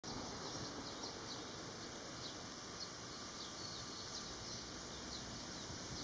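Outdoor ambience: a steady background hiss with many faint, short high-pitched chirps scattered throughout.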